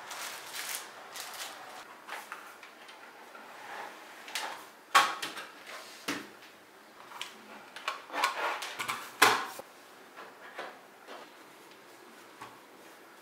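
Hands handling a plastic trackball mouse and other desk gear: a string of light clicks, taps and knocks, with the two loudest knocks about five and nine seconds in.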